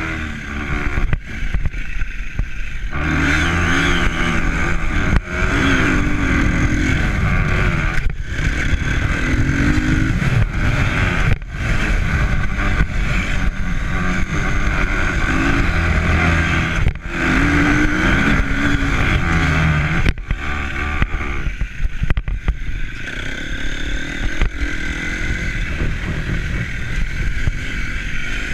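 A motor vehicle engine running, its pitch rising and falling as the revs change, over a constant rushing noise. It dips briefly every few seconds.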